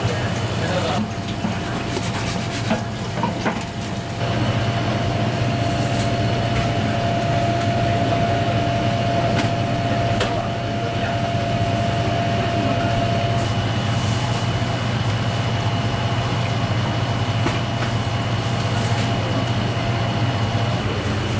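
A steady machine hum with a fainter high whine over it. A few light clicks and knocks come in the first few seconds.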